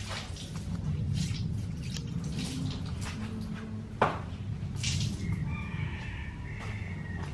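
Scattered drips and pattering of water over a steady low rumble, with one sharp tap about four seconds in and a faint wavering tone near the end.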